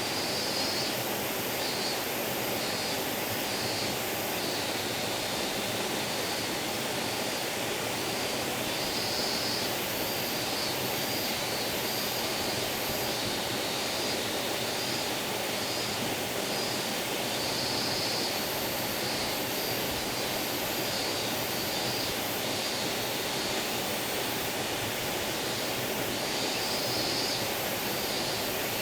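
A small forest stream babbling steadily, with insects calling overhead in short, high, repeated pulses.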